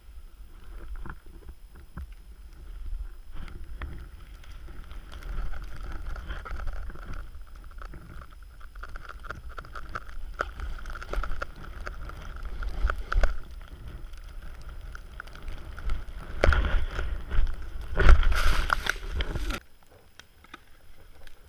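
Skis swishing and hissing through deep powder snow, with a steady low rumble and scattered small knocks. The sound swells loudest in two surges near the end, then cuts off suddenly as the skier stops.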